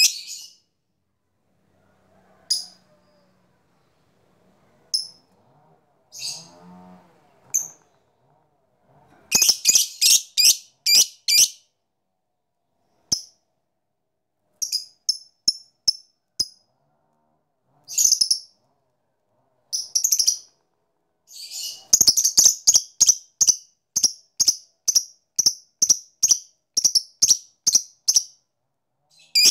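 Fischer's lovebird calling with sharp, high chirps: single chirps a few seconds apart, a quick run of about a dozen around ten seconds in, then from about 22 seconds a long, even series of about three chirps a second. This is the clicking call that keepers call "ngetik".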